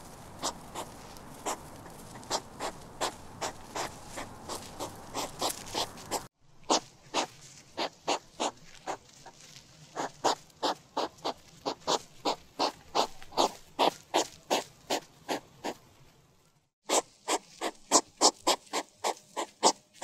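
Hedgehog crying: a long string of short, sharp calls, about three a second. There is a brief pause near the end.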